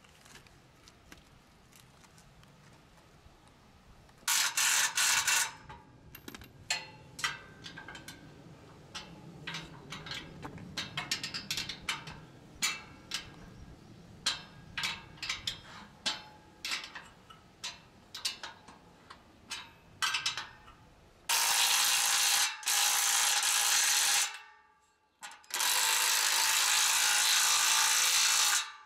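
Ratchet wrench tightening bolts: a short run of fast clicking, then single clicks at irregular spacing for about fifteen seconds, then two longer runs of rapid clicking near the end that stop abruptly.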